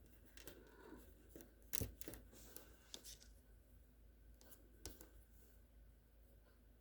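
Faint handling noises: light clicks and soft rustles, with the sharpest click about two seconds in and another near five seconds.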